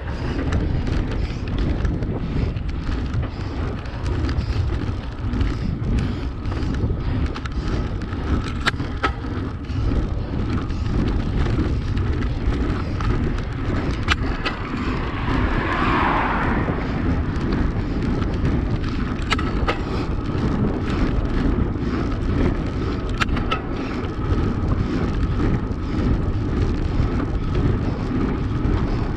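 Steady rush of wind over a handlebar-mounted camera and tyre noise from a road bike riding along a tarmac lane, with a few sharp ticks. An oncoming car passes about halfway through, swelling and fading over a few seconds.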